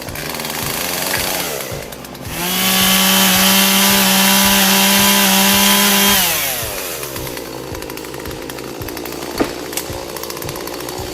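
Two-stroke chainsaw held at full throttle for about four seconds, steady and high-pitched, then its pitch drops away as the throttle is released.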